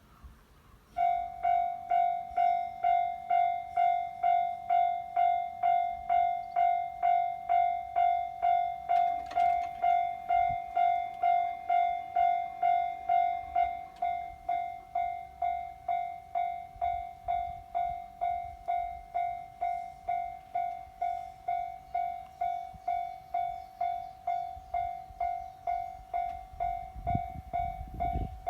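Japanese railway level crossing's electronic warning bell ringing, a steady ding about twice a second that starts about a second in and gets a little quieter around halfway. Near the end a low rumble builds as a train approaches.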